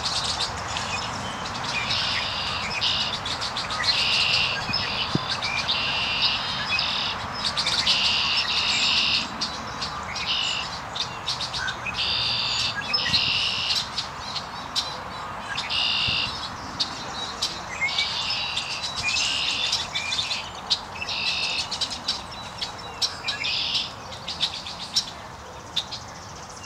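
Songbirds singing: short trilled phrases about a second long, repeated every second or two, with scattered sharp chips in between.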